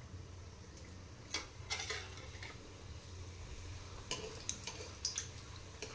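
Steel ladle clinking and scraping against an iron kadai while gulab jamun balls fry in oil, in two short bouts of clicks, one about a second and a half in and one about four seconds in. A low steady hum runs underneath.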